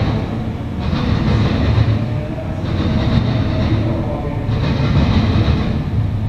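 Norfolk Southern double-stack intermodal freight train rolling past, its steel wheels on the rail making a steady, loud low rumble. A higher hiss swells and fades about every two seconds as the cars go by.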